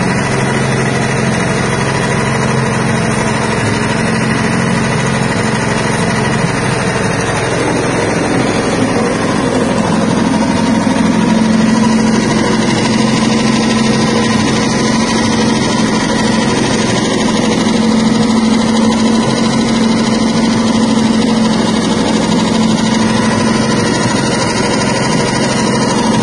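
Stainless-steel soybean cracking and hull-separating machine running steadily as beans pass through it. A steady motor hum grows a little stronger about ten seconds in, over a dense hiss.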